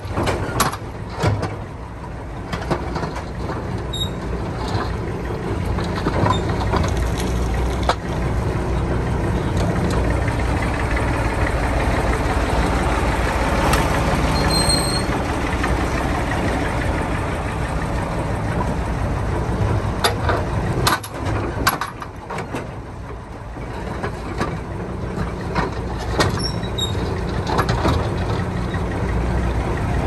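Vintage Ruston-Bucyrus 10-RB cable-operated backhoe working: its engine runs steadily, with occasional sharp clanks and knocks as it digs.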